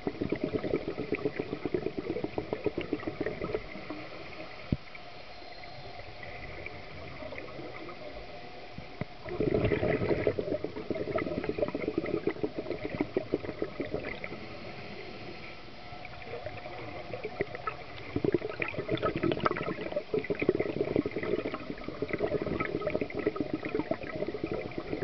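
A scuba diver's exhaled bubbles from the regulator, heard underwater as a gurgling, crackling rush. It comes in three long stretches, with quieter gaps of several seconds between them.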